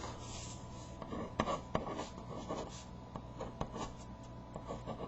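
Writing on paper by hand: a run of short scratchy strokes with a few sharp ticks of the tip against the page, as a name is written in.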